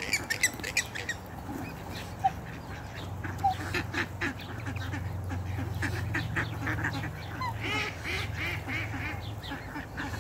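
A crowd of ducks quacking repeatedly, with short calls and clicks from the jostling flock throughout.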